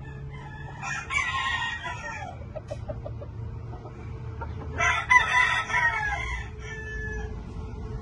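Rooster crowing twice, each crow lasting a little over a second, about four seconds apart, with a few short clucks after the first crow.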